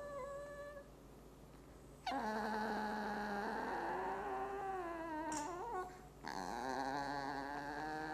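Dog whining in long, drawn-out, high-pitched tones while tugging on a toy in a tug of war, the pitch wavering. The whines break off about a second in and again near six seconds.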